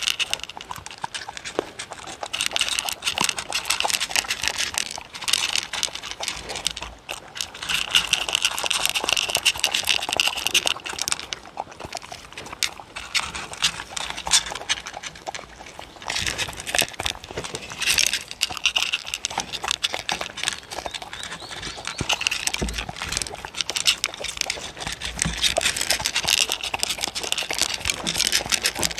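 Two dogs crunching dry kibble from wooden bowls, close to the microphone: a continuous stream of crisp chewing crunches.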